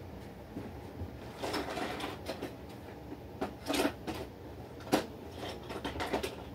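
Bedding and clothing rustling in short bursts as a person shifts about on a bed, with a sharp tap about five seconds in, over a low steady room hum.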